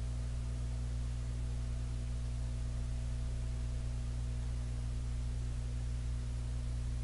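Steady low electrical hum with an even background hiss; nothing else stands out.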